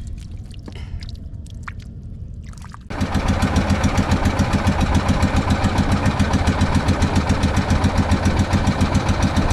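A boat engine running with a rapid, even throb, starting abruptly about three seconds in; before that, only a quieter low rumble with a few clicks.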